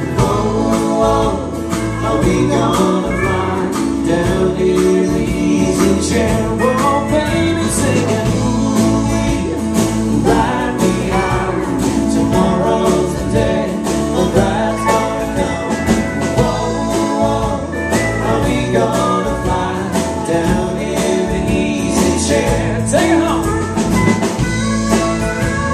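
Live country-rock band playing, with voices singing over acoustic and electric guitars and drums.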